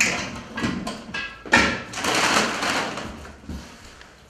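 A sharp knock, then about a second and a half in a sink tap runs with a rushing splash that tails off after roughly a second and a half.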